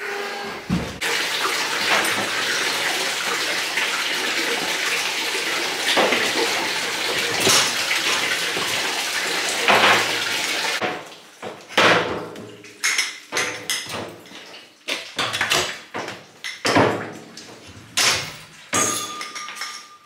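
Water running steadily for about ten seconds, then cutting off suddenly. Then irregular clanks and knocks as the stainless steel milking machine units and their hoses are picked up and handled.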